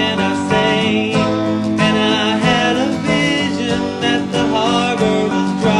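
Country-style song: acoustic guitar and band accompaniment with a singing voice.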